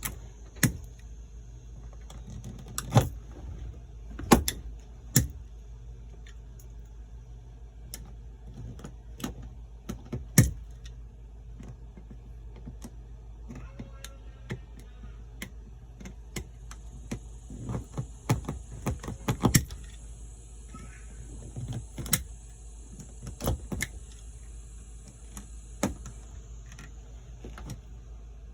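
Razor blade cutting and prying at a plastic switch blank in a Polaris Ranger's dash panel: scattered, irregular sharp clicks and taps over a steady low hum.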